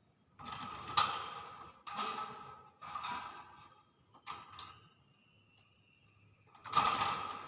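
Hill myna giving a run of short, harsh, breathy calls, then a long thin whistle that sinks slowly in pitch, and a louder harsh call near the end.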